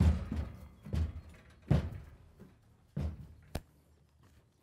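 Horse's hooves stepping down a horse trailer ramp as it backs out: about five heavy, uneven thuds over three seconds, then a sharp click about three and a half seconds in.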